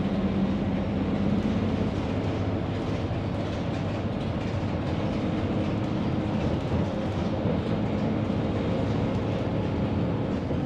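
Cabin noise inside a moving single-decker bus: a steady rumble of engine and road noise, with an engine tone that fades about two seconds in.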